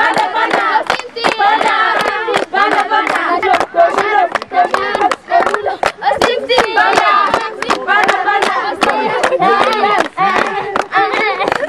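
A group of young players chanting and singing together in a warm-up song, with hand clapping throughout.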